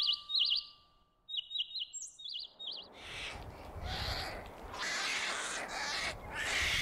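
Small birds chirping: quick wavering high peeps, a few in a row, then a second run after a short pause. From about three seconds in, a rushing noise takes over and runs with rising and falling strength.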